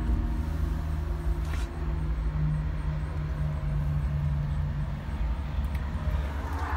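A steady, low engine hum, like an engine idling.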